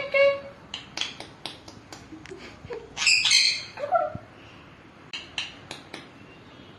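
Pet parrot squawking: a loud shrill call at the start and another about three seconds in, with many sharp clicks and taps between them.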